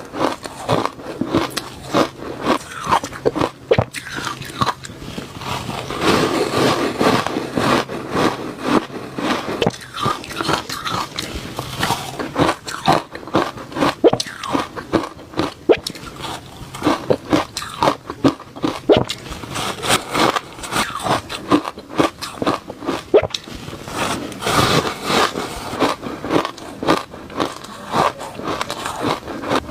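A person biting and chewing reshaved refrigerator ice in a continuous run of crisp crunches, several a second.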